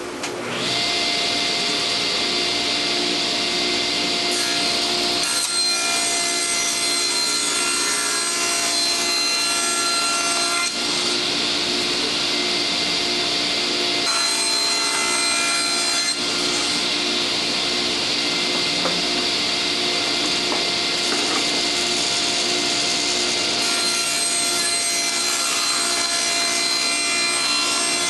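Table saw with a combination blade spinning up, then running steadily while ripping half-inch construction-grade plywood against the fence. The sound changes several times as the blade goes into and out of the wood.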